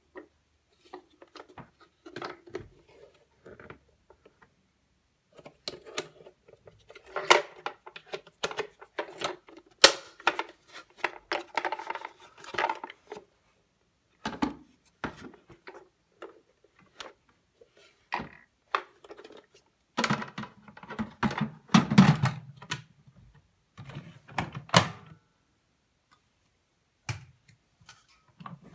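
Plastic clicks, knocks and clatter from a Zelmer Wodnik water-filter vacuum cleaner's parts being handled: the black separator insert with its green foam filter is worked in and out of the water tank and the lid shut. The sounds come in irregular bursts, with the heaviest thumps about two-thirds of the way through.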